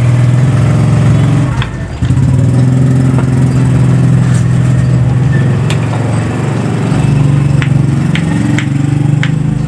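A small engine running steadily close by, with a brief drop in loudness about two seconds in.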